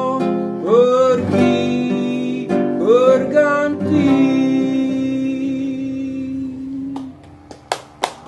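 A singer holding the closing notes of a slow song over acoustic guitar, each phrase scooping up into pitch; the last long note fades out about seven seconds in, followed by a few sharp clicks near the end.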